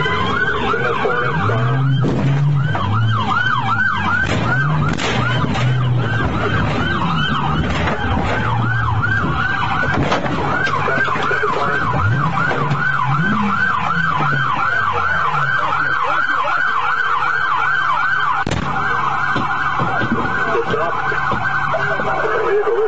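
Police car siren sounding in a fast yelp, about three sweeps a second, with a low engine tone rising and falling beneath it for the first fifteen seconds or so. A few sharp knocks come around four to six seconds in, and a single click comes near the end.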